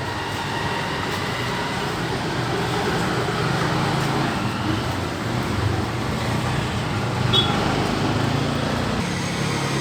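Steady motor-vehicle traffic noise with a low hum and no single event standing out.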